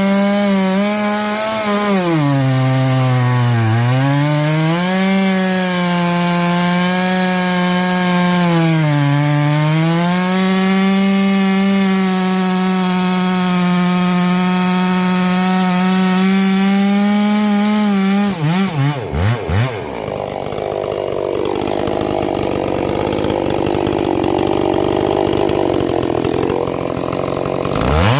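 70cc-class chainsaw cutting wood at high revs, its engine note sagging under load twice in the first ten seconds. About 18 seconds in it lets off and the note breaks up. A noisier stretch without a clear engine note follows, and the saw revs up again near the end.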